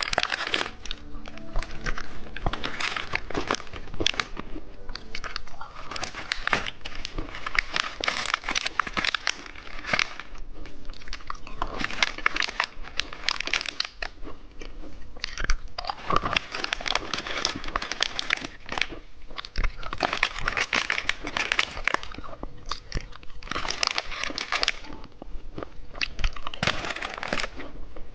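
Plastic candy packaging crinkling and crackling as it is handled and opened, a dense, irregular run of crackles.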